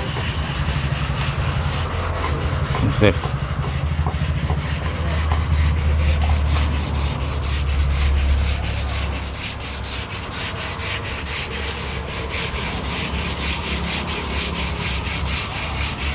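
Abrasive polishing paper rubbed by hand over a carved stone sculpture in quick, even strokes, under a low steady hum. This is the finishing stage of polishing, which goes on until the surface turns smooth.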